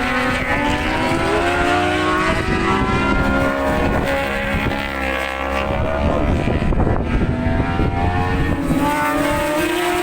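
Several racing motorcycle engines running at high revs, their pitches rising and falling with throttle and gear changes as the bikes go past.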